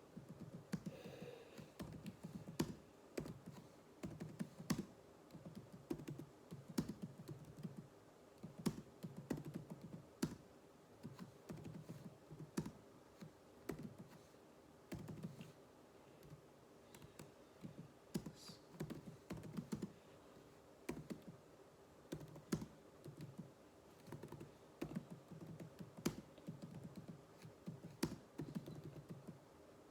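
Computer keyboard being typed on in quick runs of keystrokes with brief pauses between them, as in a typing drill.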